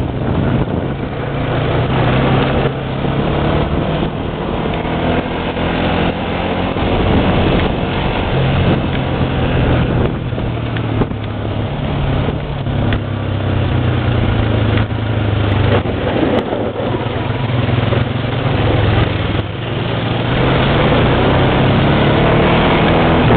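ATV engine running, its speed stepping up and down repeatedly, under a constant rushing noise.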